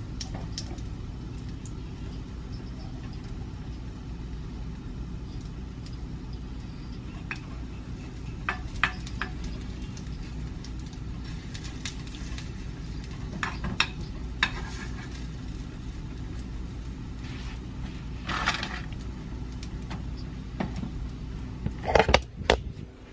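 Steady low hum with scattered short clinks of a fork against a frying pan while cookies fry. A few louder knocks near the end as the camera is handled.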